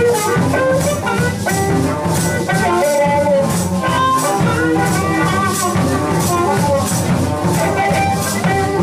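Live blues band playing an instrumental passage: harmonica cupped to a microphone and played over a hollow-body electric guitar and drum kit, with a quick, steady beat on top.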